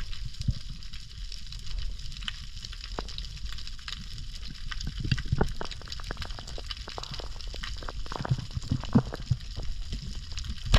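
Underwater ambience over a coral reef: a constant crackle of small sharp clicks over a low rumble of moving water, with a few louder clicks and knocks here and there.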